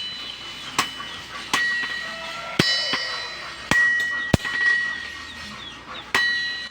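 Blacksmiths' hammers striking metal on an anvil, about six blows at uneven spacing, each ringing out with a bright metallic tone that fades before the next.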